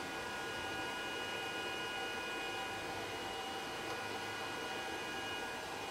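Steady electrical hum and hiss with several thin, high, steady whining tones. One of the highest tones stops near the end.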